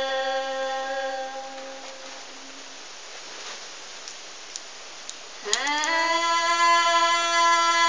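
Women's folk singing, unaccompanied: a long held note fading out over the first two seconds or so, a short quiet gap, then a new note sliding up into place about five and a half seconds in and held steadily.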